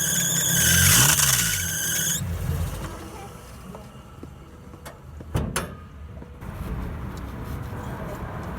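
A car engine's loose drive belt squealing loudly, high-pitched, over the engine's run-up. The squeal stops about two seconds in and the engine settles to a quieter idle, with a couple of knocks about five seconds in. The squeal is the sign of a slack belt, found to be the alternator belt.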